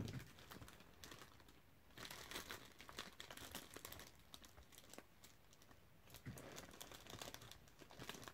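Clear plastic bag crinkling faintly as a hand rummages in it and pulls out a stack of trading cards, in spurts of rustling about two seconds in and again near the end.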